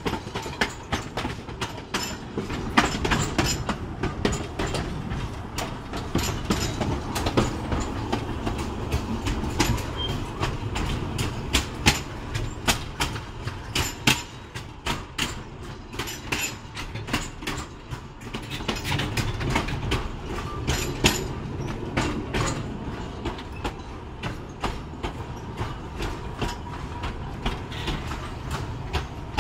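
Narrow-gauge passenger train running along jointed track: a steady low rumble with irregular clicks and knocks of the wheels over rail joints, heard from the carriage's open end platform.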